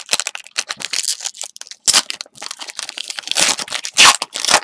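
Foil wrapper of a basketball trading-card pack being torn open by hand: irregular crinkling and tearing, with louder crackles about two seconds in and again near the end.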